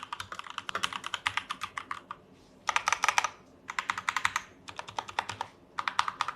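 Fast typing on a Fantech MaxFit67 mechanical keyboard with SP-Star Grey switches: rapid runs of key clacks in several bursts with short pauses between them, the loudest burst about three seconds in.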